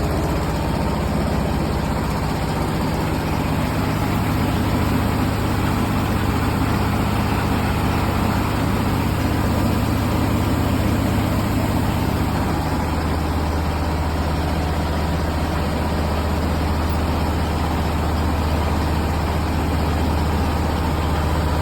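Diesel-engine-powered rice huller running steadily: a continuous low engine drone mixed with the noise of the milling machinery. The engine's tone shifts slightly about halfway through.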